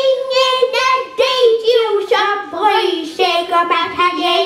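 A child singing a Norwegian song in a single voice, holding notes that step gradually lower in pitch.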